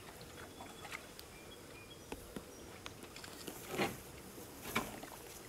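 Light, scattered knocks and handling noises as fish are worked by hand in a large tub aboard an aluminum jon boat, with two louder thumps about a second apart in the second half.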